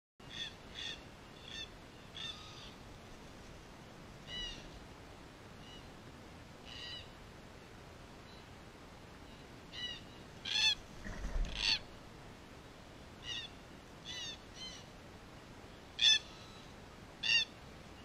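Black cockatoos calling: about twenty short, harsh, rising-and-falling calls in loose clusters, loudest near the middle and end, with a brief low thud about eleven seconds in.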